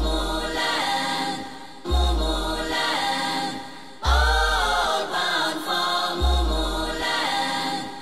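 Music: a choir chanting in long sung phrases over a deep drum or bass hit about every two seconds. The music ends right at the close.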